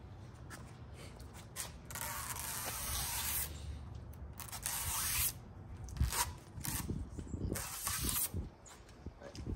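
Aerosol spray hissing in several separate bursts of about a second each, the longest early on and the last near the end.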